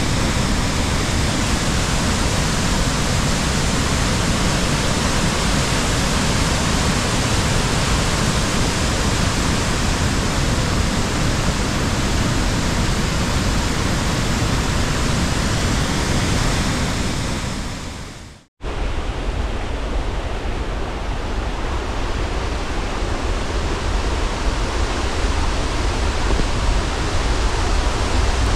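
Steady rushing of falling water from a waterfall, fading out about two thirds of the way through. After a cut, a deeper, rougher steady rushing noise takes over.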